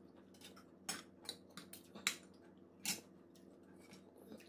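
Close-up chewing with sharp wet lip-smacks and mouth clicks, about six of them in a cluster around the middle, as a man eats a mouthful of food.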